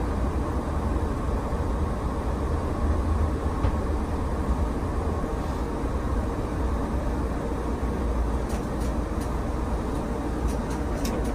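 Muni light rail train running slowly through an underground station, heard from inside the operator's cab: a steady low rumble, with a few faint ticks near the end.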